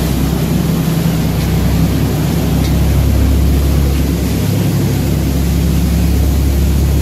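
Passenger boat running at speed: a steady low engine drone under a constant rush of churning wake water and passing air.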